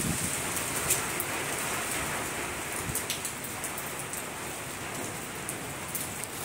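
Rain falling steadily, with single drops ticking sharply close by.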